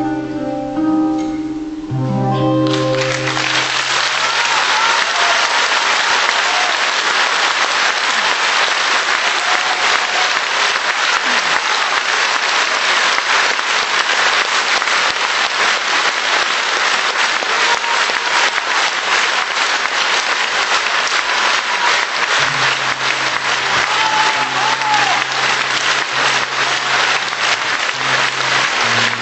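Final guitar and bass chords of a song for about the first three seconds, then a concert audience applauding loudly and steadily. About 22 seconds in, a low sustained instrument note comes back in under the clapping.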